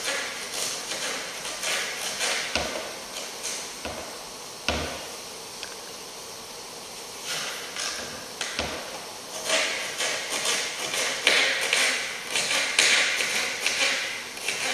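Kitchen knife cutting vegetables on a counter board: quick, irregular taps and clicks of the blade, with several heavier knocks in the first half and denser tapping near the end.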